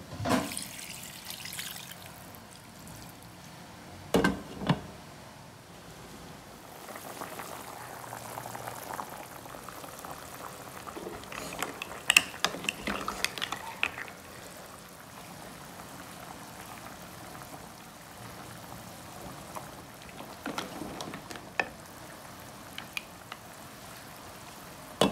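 Pot of chicken and mussel soup on a gas stove: liquid sloshing over a steady low hiss. Two sharp knocks come about four seconds in, and a burst of clatter and splashing about halfway through as the ingredients are stirred by hand in the broth.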